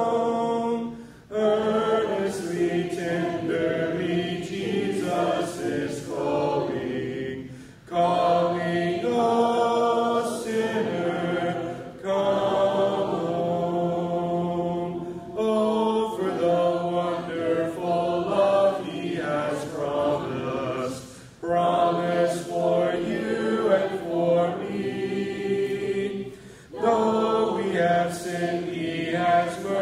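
Congregation singing a hymn in parts, unaccompanied, led by a man's voice at the microphone. The singing comes in long phrases of about four to six seconds, with brief pauses for breath between them.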